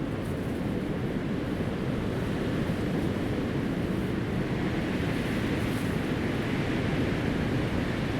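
Strong winter wind blowing in a steady rush, heaviest in the low range, swelling a little a few seconds in.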